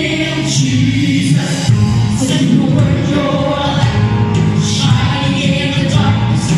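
Youth choir of young men and women singing a gospel worship song, amplified, with live band accompaniment.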